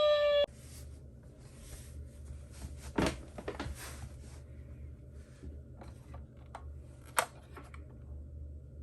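Scattered light clicks and soft rustles of toy minicars being handled, with two sharper clicks about three seconds in and about seven seconds in.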